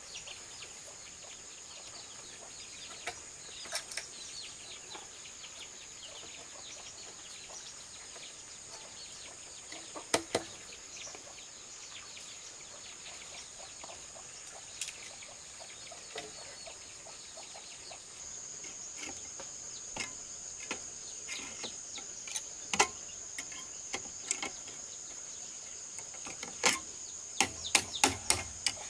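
Steady high-pitched buzz of insects, with scattered knocks and clicks of bamboo poles and wire being handled. Near the end comes a quick run of sharp clicks as wire is twisted tight around a bamboo joint with pliers.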